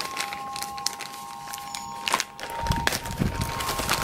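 A clear plastic resealable parts bag being pulled open and handled, crinkling, with low handling thuds from about three seconds in as the parts are tipped out.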